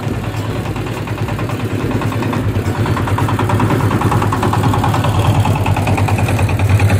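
Homemade boat tractor's Chinese diesel engine running as the machine drives by, a steady rapid beat with a strong low hum. It grows steadily louder as the tractor comes up close.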